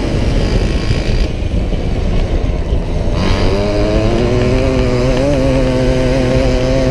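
A racing Solex moped's small two-stroke engine heard onboard while riding. The note drops away off the throttle, then about three seconds in it picks up again, rising in pitch and then holding steady, over constant wind rumble on the microphone.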